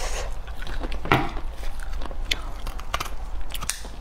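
Cooked beef tripe being pulled and torn apart by gloved hands in thick sauce: a run of wet crackles and snaps, the sharpest about a second in. The tripe is tough and rubbery.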